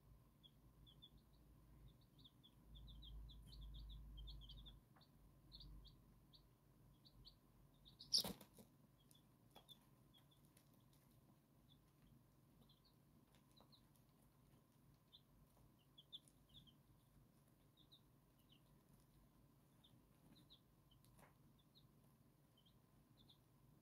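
Silver Laced Wyandotte chicks peeping faintly in many short, high chirps, with one sharp knock about eight seconds in.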